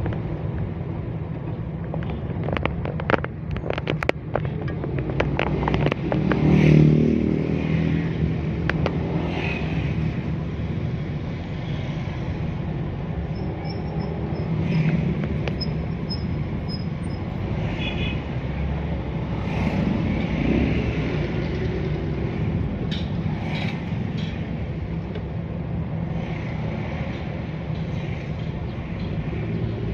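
Steady engine and road rumble from a vehicle driving through town traffic, with a quick cluster of clicks a few seconds in and another engine briefly louder about seven seconds in.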